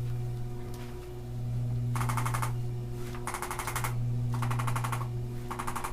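Handheld electric percussive massage instrument working on the upper back muscles: a steady motor hum, with four half-second bursts of very rapid tapping starting about two seconds in as the head is pressed into the muscle.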